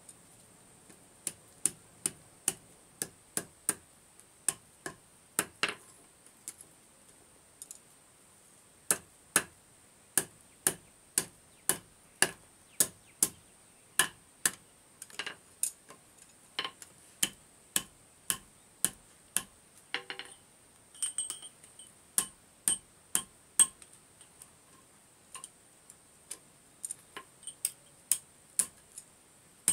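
A blacksmith's hammer striking iron on an anvil in steady, ringing blows about two a second, with two short pauses.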